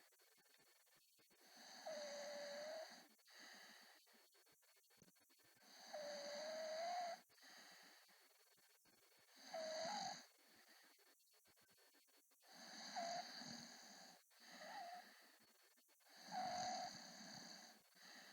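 A sleeping man snoring with squeaky, whistling snores: about six separate snores, each a high-pitched squeak lasting up to a second, coming every three to four seconds.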